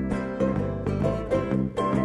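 Acoustic string band playing live: strummed acoustic guitars with quick picked mandolin notes over a steady beat.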